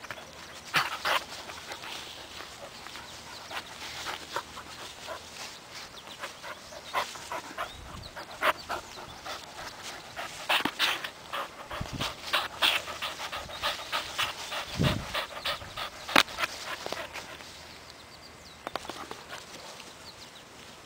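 Labrador–poodle mix puppy panting hard at close range while it plays, with irregular scuffling and rustling clicks. There are a few dull bumps against the microphone.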